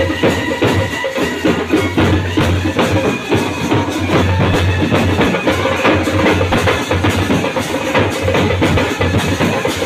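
Indian wedding brass band playing live: brass horns carrying the tune over bass drums and snare drums beaten in a fast, dense rhythm.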